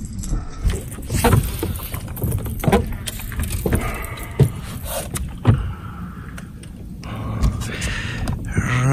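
Irregular knocks and thumps on a fibreglass bass boat's deck and hull, about five sharp ones spread over several seconds, as bass are handled and unhooked, over a steady rustling background.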